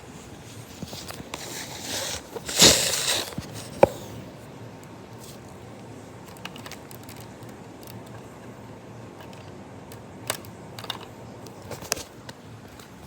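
Plastic Lego bricks of a brick-built AR-15 model being handled: scattered small clicks and rattles, with a louder rustling clatter about two and a half seconds in and a sharp click just after, over a steady background hum.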